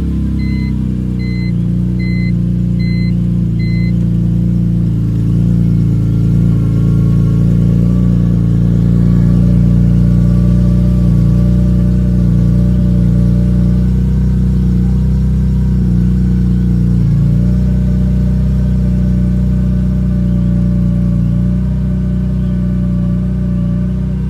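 BMW E46 M3's S54 inline-six idling steadily just after starting, with a thin whine on top that is present while the clutch pedal is up. A string of short electronic beeps sounds over the first few seconds.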